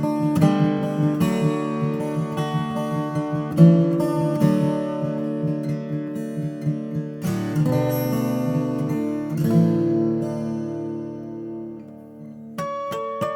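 Taylor 150e twelve-string acoustic guitar, solid spruce top, tuned to open D and played as chords and picked notes. The doubled strings ring together. About ten seconds in, a chord is left to fade, and fresh, brighter picked notes come in near the end.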